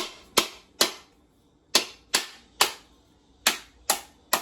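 A coconut being struck hard to crack its shell open: about nine sharp cracks, in three sets of three quick blows with a short pause between sets.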